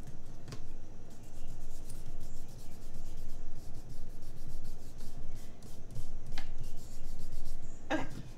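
Fingers rubbing and smoothing a paper sticker onto a planner page: a fast, fine scratchy rubbing of skin and nails on paper.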